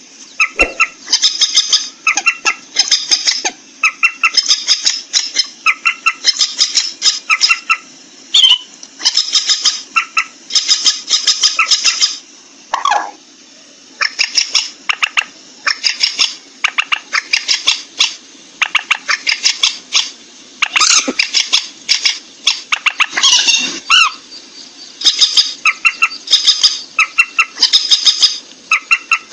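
Call of a rail of the moorhen and waterhen kind, as used for hunting playback: repeated bursts of rapid, harsh clicking notes, each lasting about a second, separated by short pauses.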